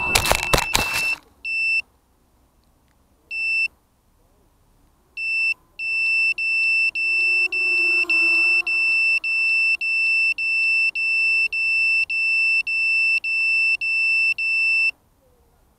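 ZMR 250 quadcopter tumbling into grass with a few hard knocks in the first second, then its piezo buzzer beeping: three single beeps, then a steady run of high beeps about two a second that stops near the end. The beeping is the lost-model alarm of a downed quad after a radio signal dropout.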